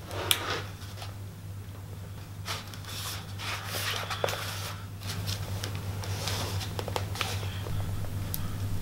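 Handling noise from a wooden cricket bat being gripped and turned in the hands: skin rubbing on the taped handle and the blade, with scattered light clicks and taps of the bat against the wooden workbench. A steady low hum runs underneath.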